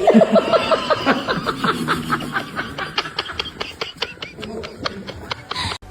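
A person laughing hard in a long run of quick bursts that fades toward the end.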